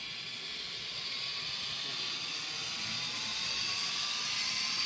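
Sound-equipped HO scale CSX diesel locomotive model running along the track, its diesel engine sound played through the small onboard speaker. The engine note climbs slightly in pitch and grows a little louder toward the end.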